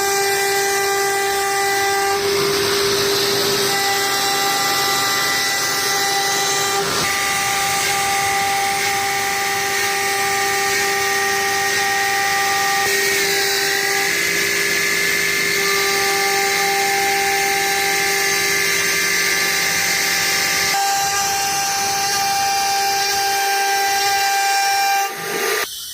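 CNC router spindle whining at a steady high pitch over a hiss as the bit carves a design into MDF; about halfway through the pitch dips briefly, then holds slightly higher.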